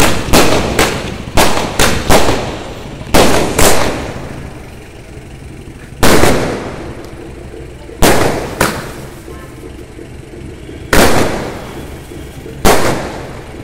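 Aerial fireworks shells bursting overhead: a quick run of about eight sharp bangs in the first four seconds, then single bangs about every two seconds, each dying away after the blast.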